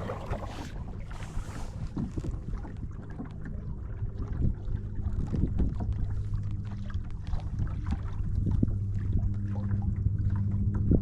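Wind rumbling on the microphone, with scattered light ticks and knocks, growing slightly louder toward the end.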